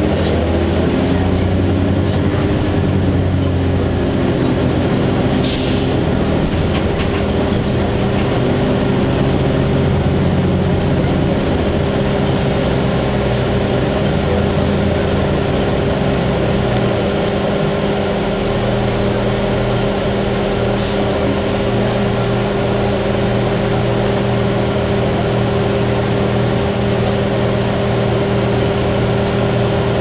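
Cabin sound of a 2002 Blue Bird CS transit bus under way, its Cummins ISC inline-six diesel and Allison B400R automatic transmission running, with a steady whine and the engine pitch shifting over the first half. Two short air hisses, about five seconds in and again about twenty-one seconds in.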